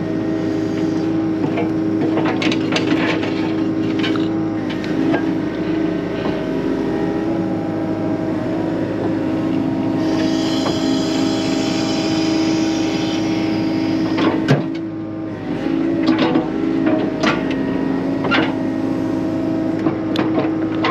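Excavator engine running steadily under work, with scattered knocks and clatter as the bucket picks through barn demolition debris, and a hiss for a few seconds about halfway through.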